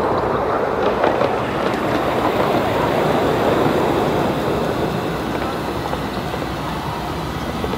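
7¼-inch gauge miniature train, a small locomotive hauling a loaded passenger car, rolling along the track: a steady rumble of wheels on the rails with a few faint clicks, louder in the first half and easing off as it goes by.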